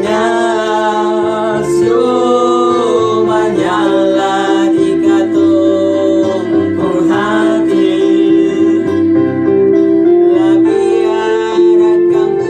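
A religious song: a voice singing over instrumental accompaniment with steady held chords.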